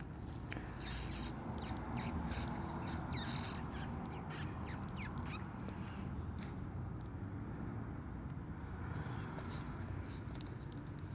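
Handling noise from a phone being used: scattered taps and clicks with brief rustles, thickest in the first half, over a low steady hum.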